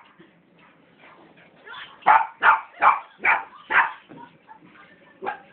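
Small puppy barking: a quick run of five sharp barks starting about two seconds in, then one more near the end.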